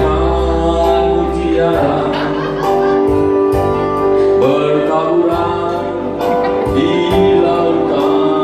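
A man singing into a microphone over a sustained musical backing, amplified through a PA system, with held chords and bass notes under a few sung phrases.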